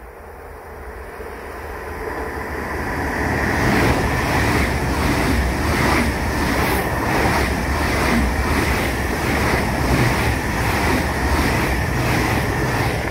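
ICE high-speed electric train approaching and passing at speed: a rush of wheels on rail and moving air that swells during the first few seconds, then holds as a loud, steady rumble with an even, repeating pulse.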